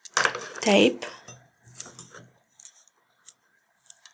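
Scissors snipping heat-resistant tape: a few separate sharp clicks.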